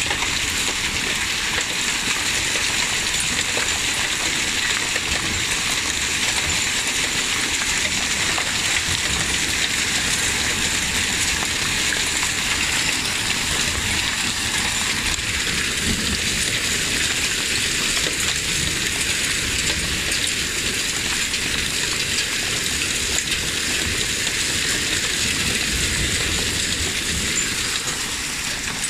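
Hailstorm: small hailstones mixed with rain pelting a wooden deck in a steady, dense patter of fine ticks.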